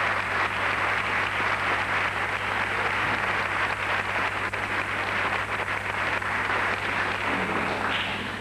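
Audience applauding, with a low steady hum underneath; the applause starts to thin out near the end.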